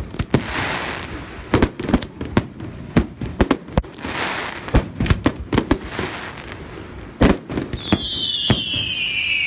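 Fireworks display: aerial shells banging in quick, irregular succession, with crackling glitter bursts swelling in between. Near the end a high whistle starts and slowly falls in pitch.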